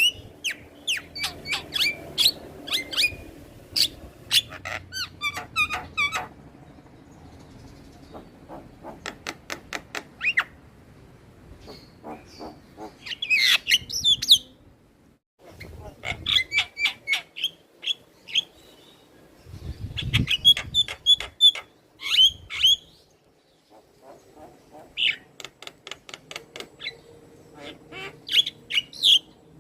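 Javan myna singing: rapid bursts of harsh chattering notes, clicks and squeaky whistles, with short pauses between phrases.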